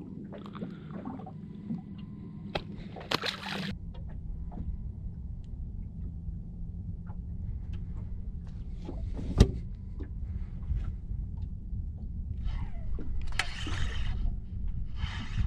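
Water sloshing and lapping against the hull of a small aluminium boat, with a few sharp knocks, the loudest about nine seconds in, and some short rushes of noise near the end.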